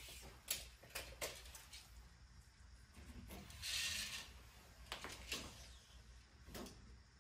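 Steel tape measure being handled and pulled out: a few light clicks and knocks, and a short rasping slide of the blade about three and a half seconds in.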